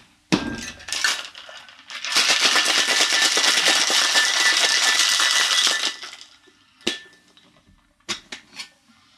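Crushed ice rattling hard inside a metal cocktail shaker as a cocktail is shaken for about four seconds, starting about two seconds in. A metal knock as the shaker is sealed comes just before, and a few sharp metal taps on the tins come near the end.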